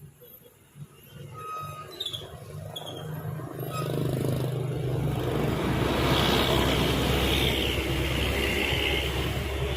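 A bus approaching the roadside, its engine and tyres getting louder from about a second in and staying loud from about four seconds on, with a steady low engine drone underneath.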